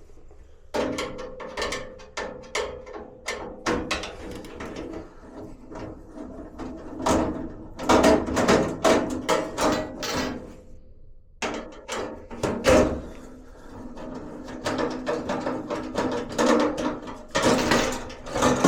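A busy run of clicks, knocks and rattles from hardware being handled, with a brief pause a little past halfway.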